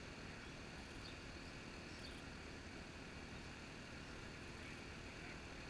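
Faint, steady outdoor background noise: a low rumble and hiss with no distinct event, and two faint short high chirps about one and two seconds in.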